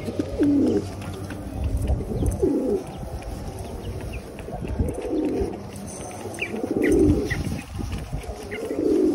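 Domestic pigeons cooing: about five low, throaty coos, one every two seconds or so.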